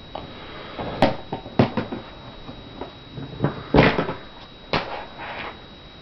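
Irregular knocks and clunks of a snake enclosure being opened and handled to take a snake out, about six strikes with the loudest a little before four seconds in.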